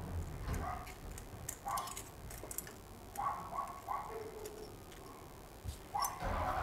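Several short, high whimpers from a dog, three in quick succession about halfway through, over light metal clicks of a nut driver tightening the clamp on a carburetor's intake boot.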